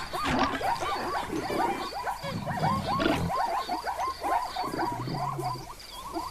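A herd of zebras calling in a chorus of quick, repeated yelping barks, several a second, with two low grunts in the middle; a faint steady insect chirp ticks behind them about twice a second.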